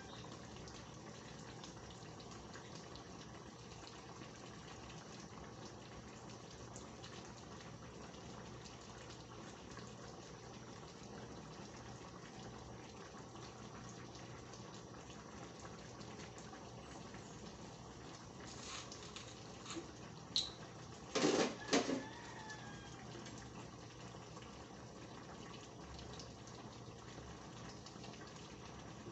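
Coconut-milk fish stew simmering in a wide pan over a gas burner: a steady bubbling hiss. About two-thirds of the way through come a few short, sharp clicks and knocks.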